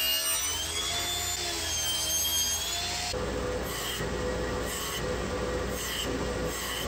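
Power tools working a piece of pine. For about three seconds a motor runs with a pitch that wavers and glides; then, after a sudden change, a steadier running tool takes over with a regular pulse about once a second.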